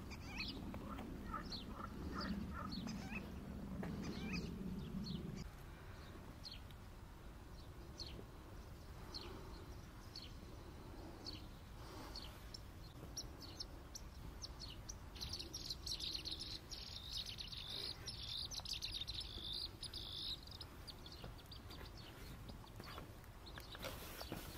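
Small birds chirping on and off, short high calls scattered throughout, with a steady high trill lasting about five seconds past the middle. A low drone underlies the first five seconds and then stops.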